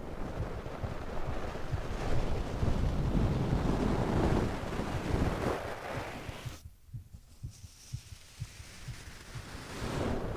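A sleeping person's slow breathing over a steady low heartbeat. A long breath swells through the first six seconds and goes quiet for about three seconds. The next breath starts near the end.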